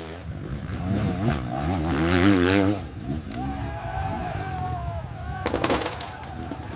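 Dirt bike engine revving, its pitch wavering quickly up and down, then a quick burst of sharp cracks about five and a half seconds in.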